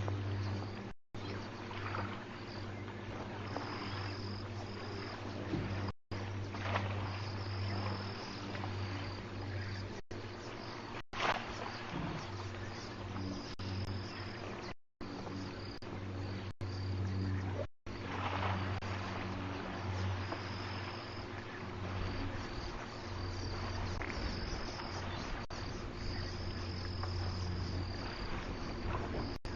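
Insects chirping in repeated high trills, over a steady low hum and outdoor hiss. The audio cuts out briefly several times.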